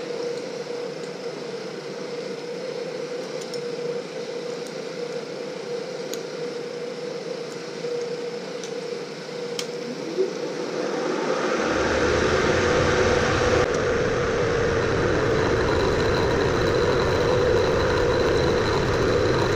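Bridgeport milling machine running a fly cutter with a single high-speed-steel bit. The spindle holds a steady hum, and about halfway through the cutter starts taking a face cut across the aluminium block, adding a louder, rough rumble. The cut is a test for chatter, which still leaves lines in the surface.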